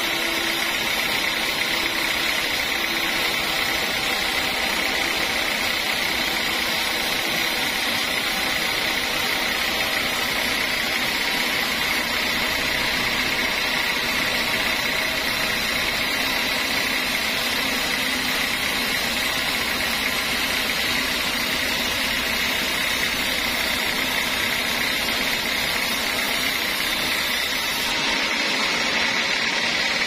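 Sawmill band saw running steadily as it rips a board from a teak log, the blade and its drive giving a steady whine over the cutting noise. The hiss lessens near the end.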